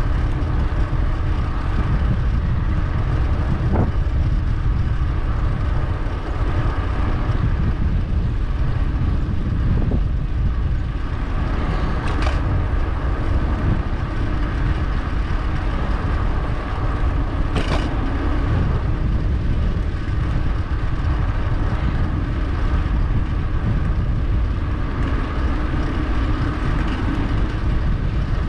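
Steady rush of wind on the microphone and tyre noise from a moving electric bike. Two brief sharp clicks sound about 12 and 18 seconds in.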